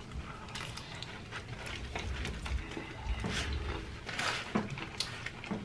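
Breaded fried chicken being bitten and chewed close to the microphone: irregular crisp crunches, with the loudest ones a little past halfway.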